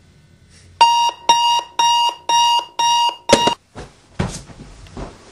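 Digital clock radio alarm beeping: six electronic beeps, about two a second, the last one cut short. After that come a few soft thumps and rustles as someone moves in bed.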